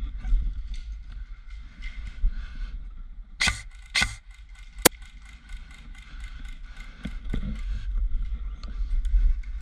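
Outdoor ambience with a steady low rumble of wind on the microphone. It is broken by two sharp knocks about three and a half and four seconds in, and a short crack about a second later.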